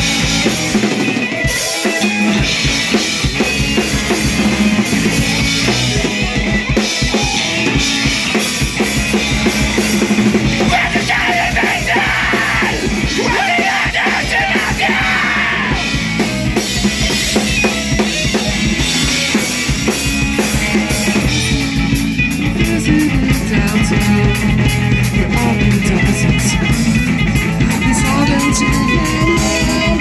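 A rock band playing live and loud: electric guitars, bass guitar and a drum kit.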